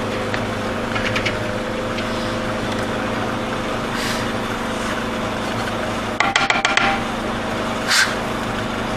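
Mortise machine running with a steady hum while cutting a mortise in a small door frame. There is a quick rattle of clicks about six seconds in, and two short hissing bursts, one around the middle and one near the end.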